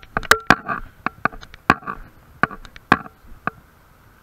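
A series of sharp knocks, roughly two a second and unevenly spaced, each with a brief ring at the same pitch. They come from walking with the camera: the footsteps jar the camera and its mount.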